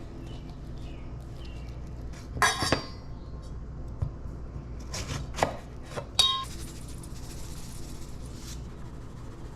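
Kitchen clatter: dishes and utensils knocking and clinking a few times, one clink ringing briefly, followed by a short hiss of about two seconds.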